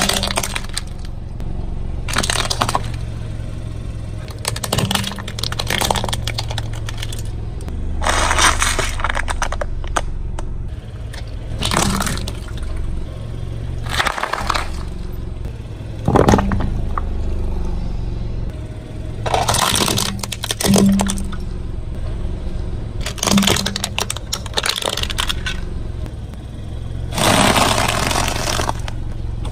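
A car tyre rolling over and crushing crunchy objects: about ten bouts of cracking and crunching, a few seconds apart, over the car's steady low rumble.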